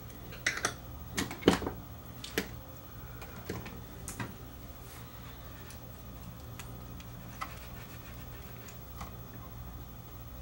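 Small metallic clicks and ticks of a screwdriver and screws working on a cassette deck's sheet-metal mechanism: a quick run of clicks in the first two and a half seconds, then a few scattered ticks, over a low steady hum.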